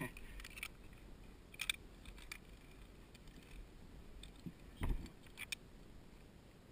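Faint scattered metallic clicks and rattles of zipline carabiners and a pulley trolley being handled on the steel cable, with a louder knock about five seconds in.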